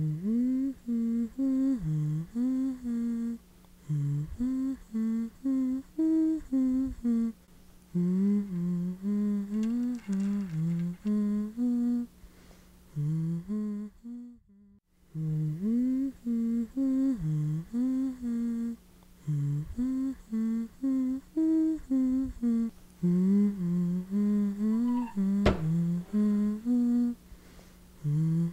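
A voice humming a slow, wavering melody over a steady low held drone. The tune breaks off briefly about halfway and the same phrase is hummed again.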